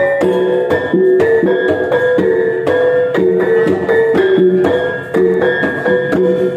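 Iban brass gong music (taboh): tuned gongs struck in a quick, repeating melodic pattern, each stroke ringing on into the next.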